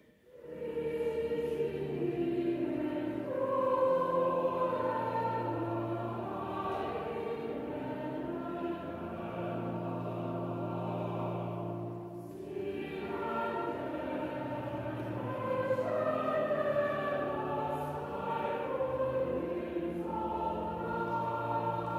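Hymn sung by a choir over sustained organ chords, with a brief pause between lines about twelve seconds in.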